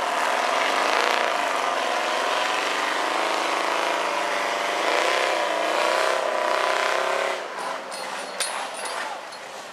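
High-horsepower rock bouncer buggy's engine revving hard under load as it climbs a rock ledge, its pitch rising and falling with the throttle. About seven seconds in the revs drop off sharply, leaving lighter clatter.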